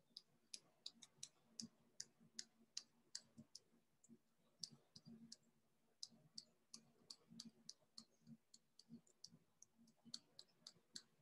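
Faint, irregular computer mouse clicks, about two or three a second with a couple of short pauses, while shadows are brushed in.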